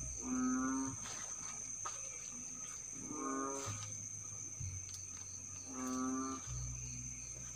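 An animal giving short moo-like calls, three times about two and a half seconds apart, each about half a second long on a steady pitch, over a steady high insect buzz.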